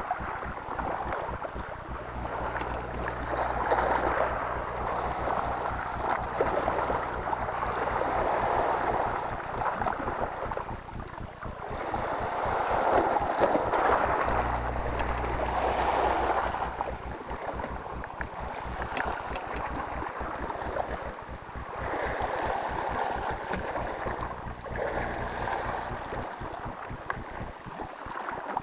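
Sea waves surging and washing against shoreline rocks, swelling and falling every few seconds, with wind rumbling on the microphone.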